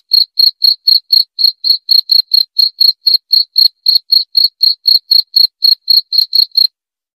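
A cricket chirping in a steady rhythm, about four high chirps a second, that cuts off suddenly near the end.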